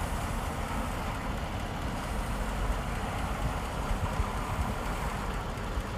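Truck-mounted mobile crane's diesel engine running steadily: a low, even rumble.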